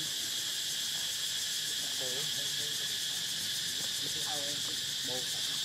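Steady, high-pitched chorus of insects, with a few brief wavering calls about two seconds in and again near the end.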